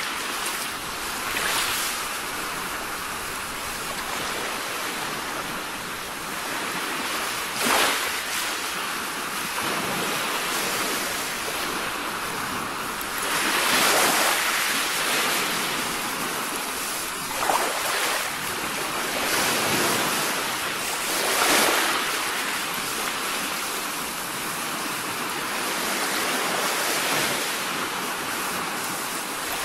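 Ocean surf: waves washing in on a beach, a steady rush that swells into several louder surges and falls back.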